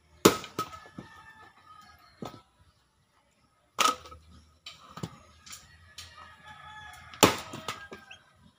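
Steel axe splitting firewood on a log chopping block: three heavy strikes about three and a half seconds apart, each followed by a few lighter knocks.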